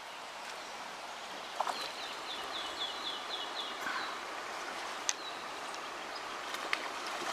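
Steady rush of river water over shallow riffles, with a small bird singing a short run of about seven quick repeated high notes between about two and four seconds in. A few sharp clicks stand out over the water.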